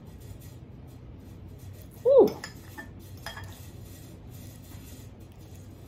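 Metal cutlery clinking and scraping against a glass cake dish, a few sharp clicks just after two seconds in. Just before them comes a brief pleased vocal hum, the loudest sound, its pitch rising and then falling.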